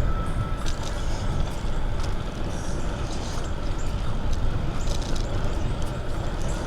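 Steady low wind rumble on a windscreened clip-on microphone while riding a hybrid bicycle, with tyre noise and scattered small clicks and ticks from the bike.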